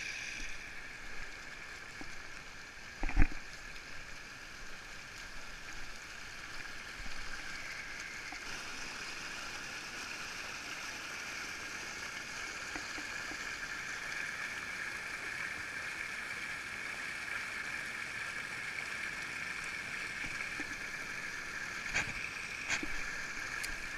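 Small storm-runoff stream of rainwater and snowmelt rushing and splashing over leaf litter and fallen branches, a steady babble. A single sharp knock about three seconds in, and two lighter clicks near the end.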